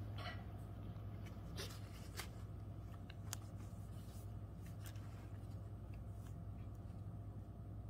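Faint rustling and scattered small clicks of paper and bedding as a Pomeranian mother and her newborn puppies shift in the whelping box, over a steady low hum.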